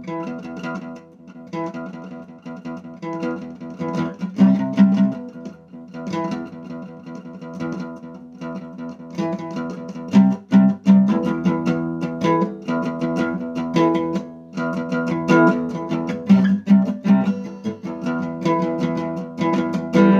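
Solo acoustic guitar playing a steady stream of picked and strummed chords, with a few louder accented strums.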